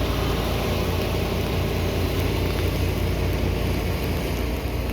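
Mower engine running steadily, a low even drone with no change in pace.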